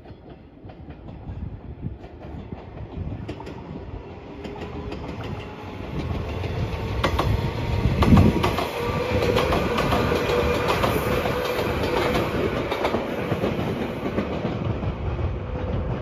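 JR 115 series electric train running past, its wheels clicking over the rail joints. The sound builds as the train approaches, peaks about halfway through as it passes close by, then stays steady.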